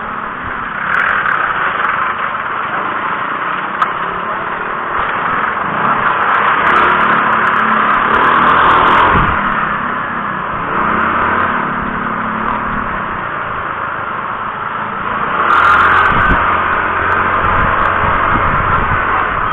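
A motor vehicle's engine running over steady road and wind noise, its note rising and falling as it speeds up and slows. It swells louder several times.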